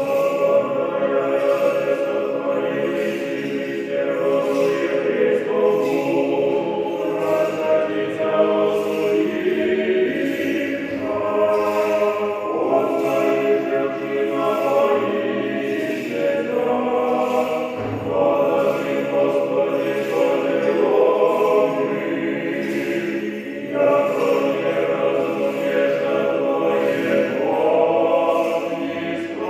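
Choral music: a choir singing held, slowly changing chords.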